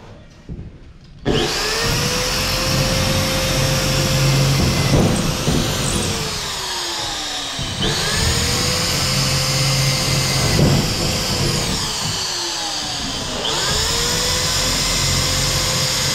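Ingco electric drill boring into fibre-cement (Hardiflex) wall board, run three times: the motor whine starts suddenly about a second in, holds steady, then winds down, and starts up again twice.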